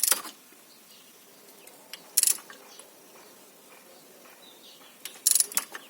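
Torque wrench ratcheting on a cylinder head bolt in three short bursts: one at the start, one about two seconds in and a longer one near the end. The bolt is being drawn down on the first 29 ft-lb pass, before the wrench clicks off.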